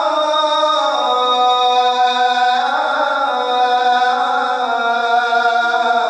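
A single man's voice chanting Islamic prayer recitation in long held, ornamented notes, the pitch stepping down and back up between them without a break.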